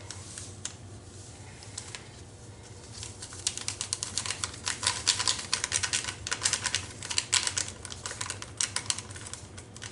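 Rapid light clicking and crinkling of a packet of active dry yeast being shaken out over a glass measuring cup of warm water. The clicking starts about three seconds in and runs on in quick irregular runs until near the end.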